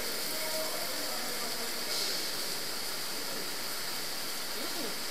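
Steady rush of the Neglinka underground river flowing through its collector tunnel.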